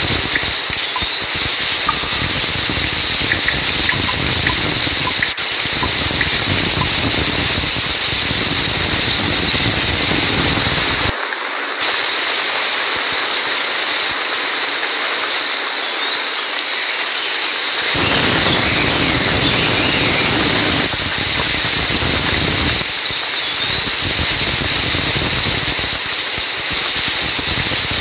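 Heavy rain falling steadily, a dense hiss of drops on leaves and ground. The sound changes abruptly several times, losing its low rumble for several seconds near the middle, and a few faint short high chirps sound over it.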